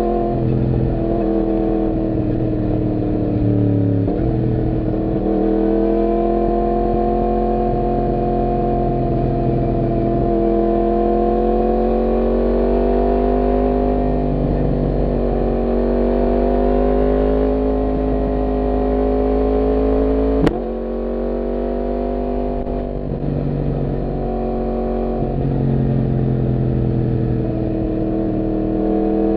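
Yamaha MT-10's crossplane inline-four engine under way, its pitch slowly rising and falling with the throttle. About two-thirds through it revs quickly up, then drops back and runs quieter.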